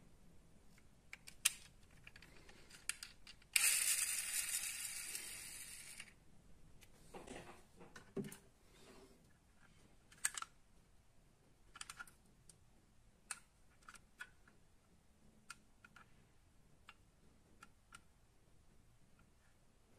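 Light clicks and taps of small die-cast metal model cars being handled in the fingers, doors and parts clicking. A louder rushing noise starts suddenly a few seconds in and fades away over about two seconds.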